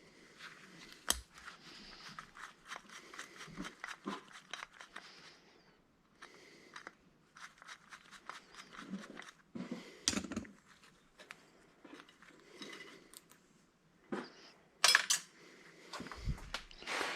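Small metal parts of an old electric angle grinder and hand tools clicking, scraping and clinking during hand disassembly, with a few sharper knocks, the loudest near the end.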